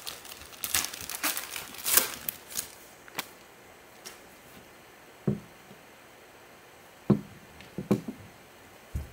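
Foil wrapper of a trading-card hobby pack crinkling and tearing as it is pulled open by gloved hands, for about the first three seconds. Then a few short, soft thumps as the cards are handled.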